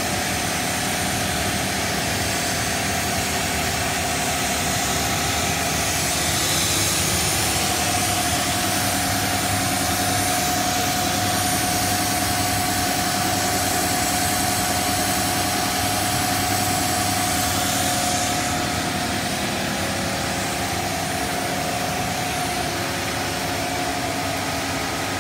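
Cast stretch film extrusion line running: a steady machine hum with a constant mid-pitched whine over even hiss, the hiss growing stronger for a while in the middle.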